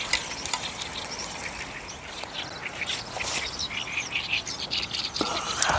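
Early-morning outdoor ambience: birds chirping on and off over a steady, high-pitched insect trill, with a few faint clicks.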